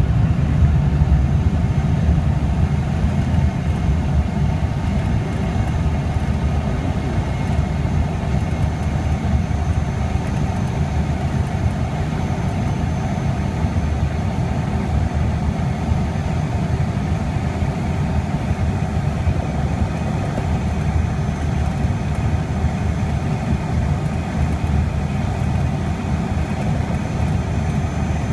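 Pilatus PC-6 Porter's engine and propeller running steadily as the aircraft taxis, heard from inside the cabin as a heavy low drone. It is a little louder for the first couple of seconds, then holds even.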